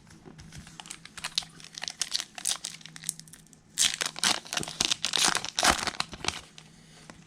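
Foil wrapper of a Topps Chrome card pack crinkling and tearing as the pack is ripped open by hand, with the loudest crinkling in the second half.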